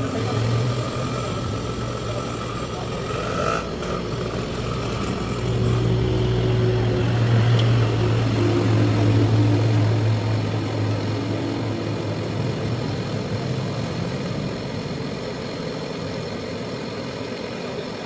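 Refrigerator compressor running with a steady low hum while refrigerant gas is charged into its line from a small can. The hum swells from about five seconds in and eases off again after about eleven seconds.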